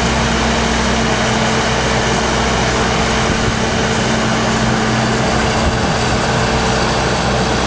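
An engine running steadily at a constant pitch, with a steady hum and no change in speed.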